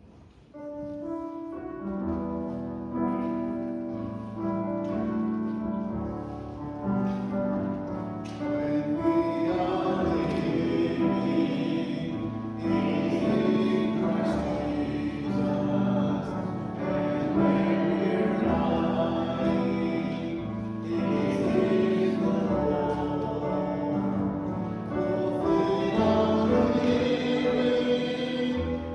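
A church congregation singing a hymn with instrumental accompaniment. The accompaniment plays alone for about the first eight seconds as an introduction before the voices come in.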